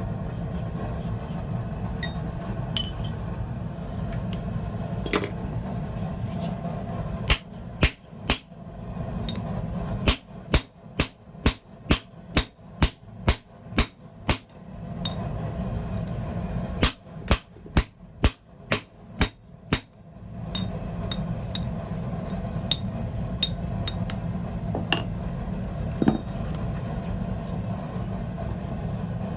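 Hand hammer driving a steel drift into the eye of a hot hammer head to spread it, blows ringing sharply. About three blows, then a run of about ten at a little over two a second, a pause, and about eight more. A steady low hum fills the gaps between the runs.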